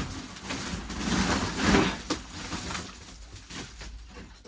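Rustling and crunching as a sack of firewood is handled, with one sharp knock about two seconds in.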